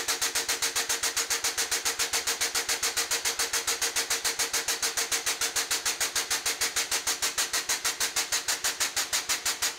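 Hydraulic shop press pump working in rapid, even pulses, several a second, as the brake-press ram bends the steel flat-bar straps. The pulsing stops at the end and fades out.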